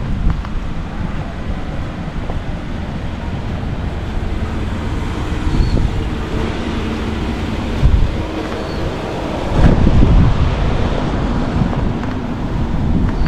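Wind buffeting the microphone, a low rumble that swells in gusts about eight and ten seconds in.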